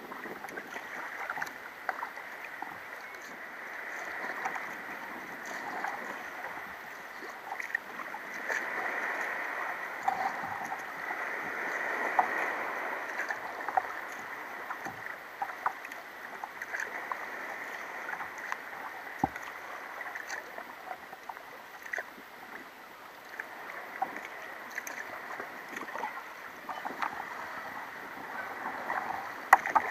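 Sea kayak being paddled through calm water: paddle blades dipping and water splashing and dripping off them, in a steady run of small splashes and trickles that swell and fade.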